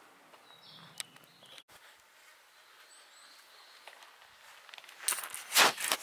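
Quiet outdoor background, then footsteps scuffing on a path near the end, the loudest step about half a second before the end.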